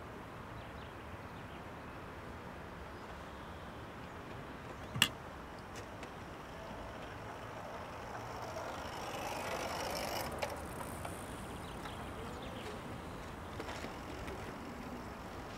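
Outdoor background with a vehicle passing, swelling and fading away about eight to eleven seconds in. A single sharp click about five seconds in is the loudest moment.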